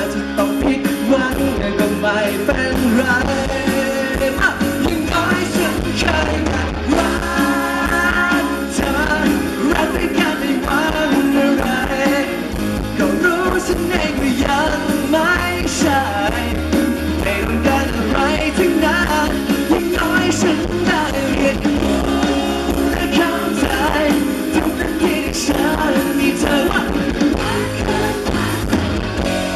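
Live rock band performing: a man sings into a microphone over drums, electric guitar and bass, loud and steady.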